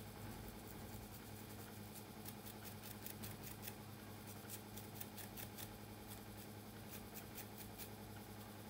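Close-miked crackle and scratch of coarse hair as a plastic comb and fingers pick out cornrows: a run of quick, faint, crisp ticks from about two seconds in until near the end, over a steady low hum.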